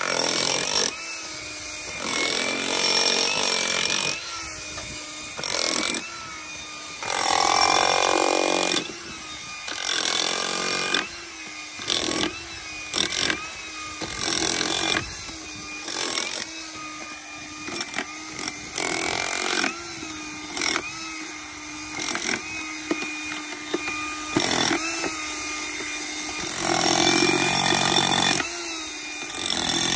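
Corded electric demolition hammer running continuously, with repeated loud stretches of chiseling as the bit breaks into concrete block.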